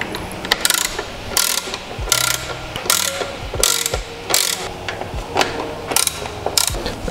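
Socket ratchet wrench clicking in short runs, one run every half second or so with uneven gaps, as Torx bolts are run in and tightened.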